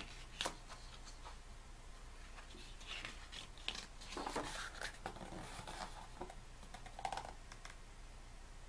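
Pages of a photo book being handled and turned: faint paper rustles and soft clicks scattered throughout, a little louder as a page is turned about four seconds in.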